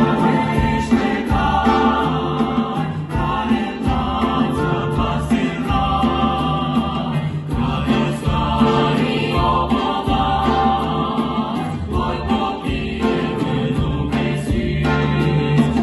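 A vocal ensemble sings a Moldovan folk carol with a full variety orchestra (drum kit, saxophones, strings, guitars and keyboards) over a steady bass beat.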